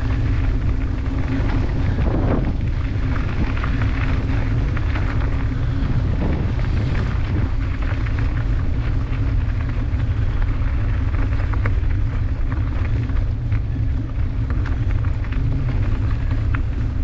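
Steady low wind rumble on an action camera's microphone while a bicycle rolls along a gravel path, with scattered crunches of tyres on loose gravel.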